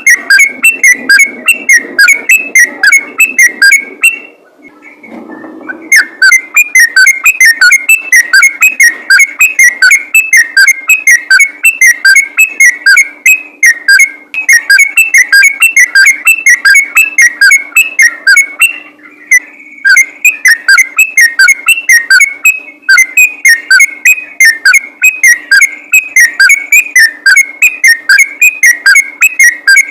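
Sooty-headed bulbul singing a rapid, continuous chatter of loud whistled notes (the 'ropel' song), broken by a pause of about two seconds near the start and a short break about two-thirds of the way through.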